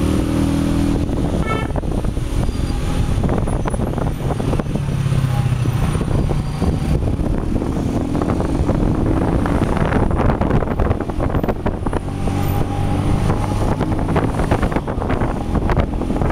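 A motor vehicle engine running at low speed, its pitch rising and falling several times as it moves slowly in traffic, with rough noise over it.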